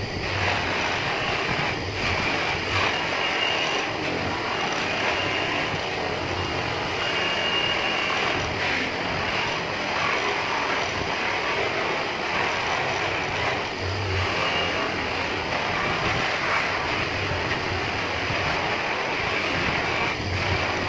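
Electric polishing motor running steadily, its buffing wheel rubbing against an aluminium motorbike hub brake plate that is held against it.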